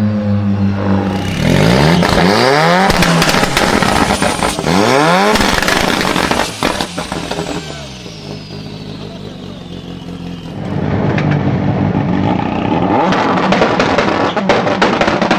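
Sports car engine revved hard, its pitch sweeping up twice in quick succession, with exhaust pops and crackles. It drops quieter in the middle, then runs loud again with rapid crackling toward the end.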